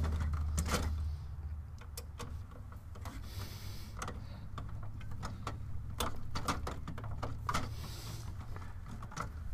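Scattered clicks and light knocks of a Torx driver and hands working at a tight T10 Torx screw on a 3D printer's X-axis bracket, the screw refusing to turn. A low hum runs underneath and drops off after about a second.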